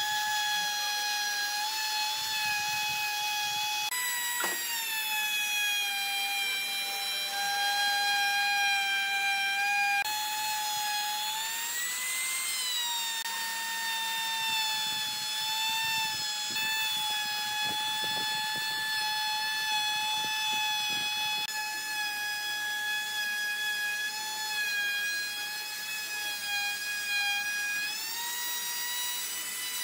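Makita trim router running at full speed and cutting the edge of an epoxy tabletop: a steady high-pitched motor whine over the hiss of the cut, its pitch rising and falling slightly a few times.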